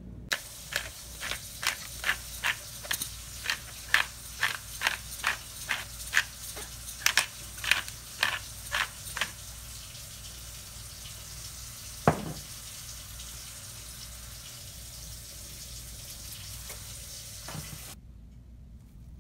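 Black pepper being added to a pot of green beans: about twenty short, sharp strokes, roughly two a second, for the first half. About midway comes a single sharp knock and near the end a fainter one, over a steady watery hiss from the pot.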